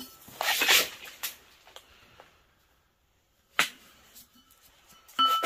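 A heavy cut-crystal piece being handled, with a sharp knock a little past halfway. Near the end it is struck and rings with a clear, held high tone, the ring that marks it as crystal rather than plain glass.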